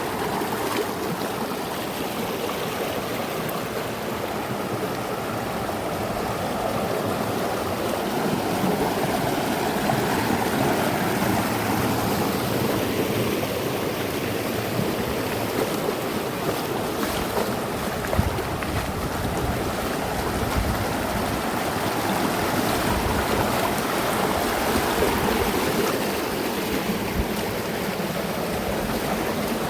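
River water rushing steadily, an even noisy rush of flowing water. Low rumbling gusts come in from about halfway through.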